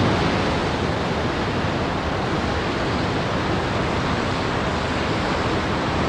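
A steady, even rush of water noise with no music over it.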